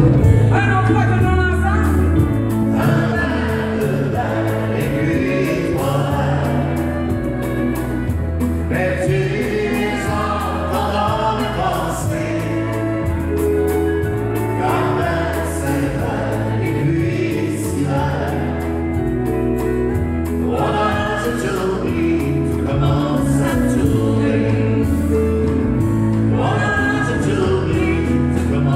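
Live country band music: a woman and a man singing together over acoustic guitar, keyboard and a bass line.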